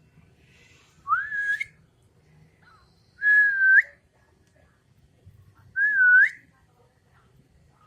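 Cat meowing three times, about a second and a half apart: high, thin calls that rise in pitch at the end.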